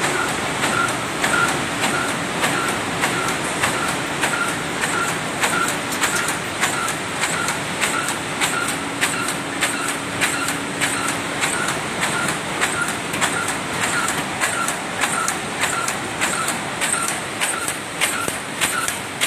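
CD 1600 double-line hamburger box erecting machine running, forming paper carton blanks into boxes: a steady mechanical clatter with a sharp clack repeating about every half second.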